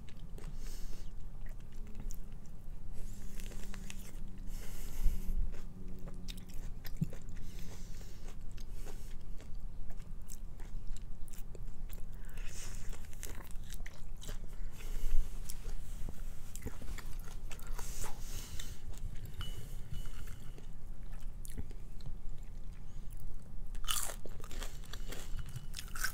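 Close-miked eating sounds: biting, chewing and repeated crunches of food in the mouth.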